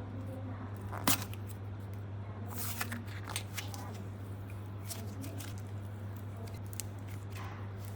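Hands working slime, giving scattered small clicks and crackles, the sharpest about a second in, over a steady low hum.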